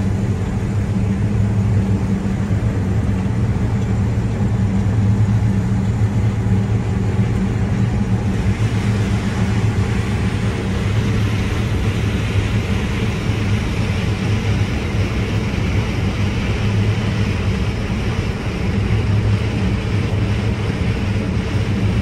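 New Holland combine harvester running while picking corn, heard from inside the cab as a steady low drone. A higher hiss joins about eight seconds in and stays.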